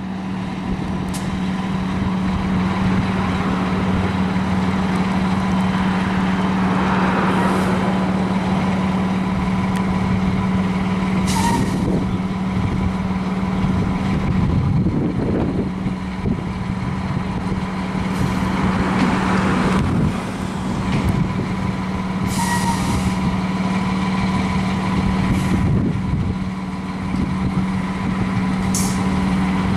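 Fire engine's diesel engine idling with a steady drone, with a few short air-brake hisses.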